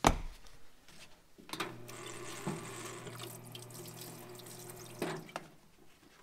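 Parts washer pump running: a steady low hum with solvent streaming from the flexible nozzle and splashing over a piston being rinsed. It starts about a second and a half in and stops about five seconds in, with a knock at the start and another where it stops.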